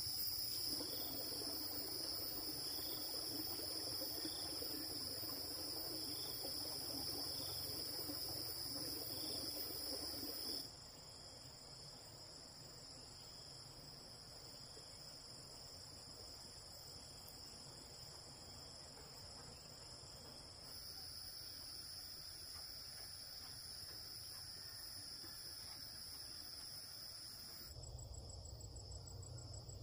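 Steady, high-pitched chorus of insects such as crickets or cicadas, with a faint low rushing noise under it for the first ten seconds. The level drops abruptly about a third of the way in and shifts again twice later.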